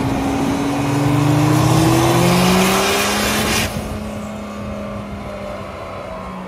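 Dodge Cummins inline-six turbodiesel making a full-load pull on a chassis dyno, loud with revs climbing steadily. About three and a half seconds in the throttle is lifted and the sound cuts off suddenly, leaving a lower, steadier hum as the engine and dyno rollers wind down.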